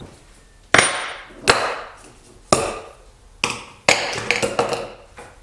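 Broken caulk-tube projectiles and steel nails set down one after another on a hard workbench: about five sharp knocks, each dying away quickly, then a few lighter clicks.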